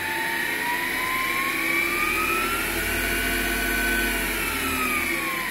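MX 8x14 variable-speed mini-lathe's motor and spindle running unloaded with no gear train engaged: a high-pitched whine rises as the speed is turned up to nearly 2,900 rpm, holds, then falls near the end as the speed is turned back down. The owner thinks the whine comes from the motor's PWM three-phase controller.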